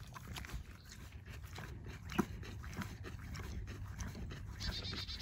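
A horse eating grain feed from a rubber feed tub: lips rummaging through the feed and slow chewing, heard as quiet, irregular small clicks and rustles, with one sharper click a little past two seconds in.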